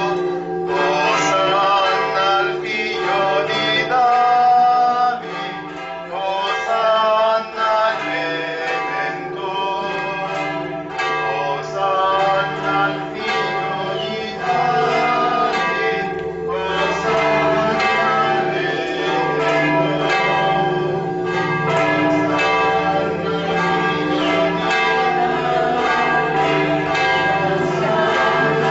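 Church bells ringing continuously in a festive peal, with people singing a hymn underneath.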